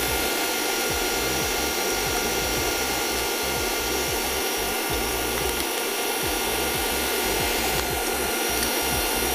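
Electric mixer running steadily at constant speed, beating eggs for a cake batter.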